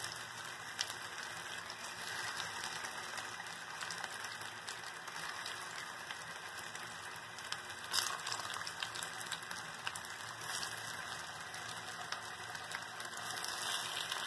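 Spiced raw banana slices and curry leaves sizzling in shallow oil in a nonstick pan: a steady crackling with small pops throughout, and one louder click about eight seconds in.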